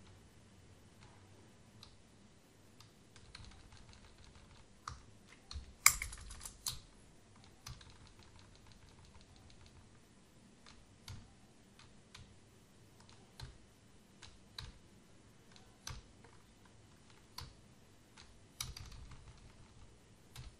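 Typing on a computer keyboard in irregular keystrokes: a quick flurry of keypresses about six seconds in, the loudest part, single keystrokes about once a second after it, and another short flurry near the end.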